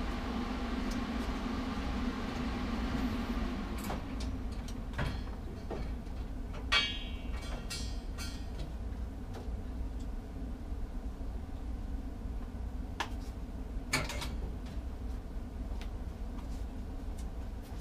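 AHP 200X welder's cooling fan winding down after the machine is switched off, its hum fading away over the first few seconds. A low steady hum stays underneath, with a few scattered clicks and knocks and a short rattle about seven seconds in.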